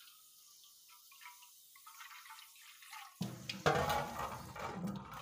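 Kitchen tap water running into a metal bowl held under it, faint at first. About three seconds in it turns to much louder splashing and pouring into a steel sink.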